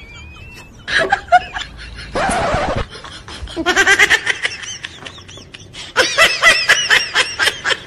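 A person laughing hard in repeated bursts of quick pulsing laughs, with a short rushing noise about two seconds in.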